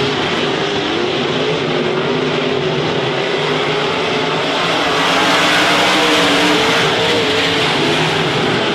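A pack of IMCA modified dirt-track race cars' V8 engines running hard together, their overlapping engine notes rising and falling as the drivers work the throttle.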